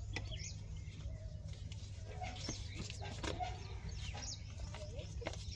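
Faint clucking of chickens and chirping of small birds over a steady low hum, with a few light clicks.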